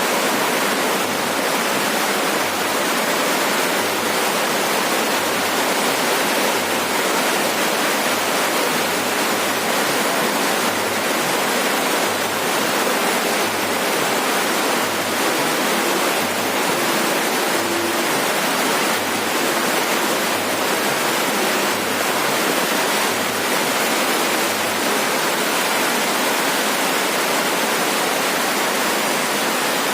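Heavy rain falling steadily on a roof, a dense, even hiss of drops with no let-up.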